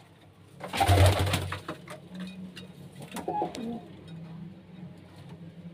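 Domestic pigeons cooing in a loft, with a louder burst of sound about a second in.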